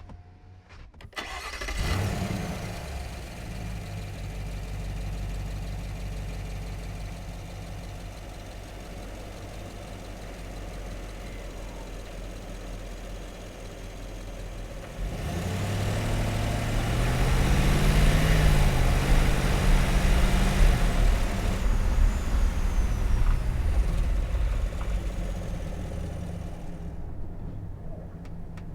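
Chevy Suburban SUV engine cranking and catching about two seconds in, then idling steadily. About halfway through it gets louder and climbs in pitch, then eases back down to a steady run.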